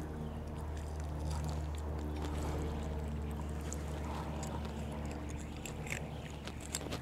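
Faint splashing and dribbling of creek water as a skinned cottonmouth is cleaned by hand at the water's edge, over a steady low hum.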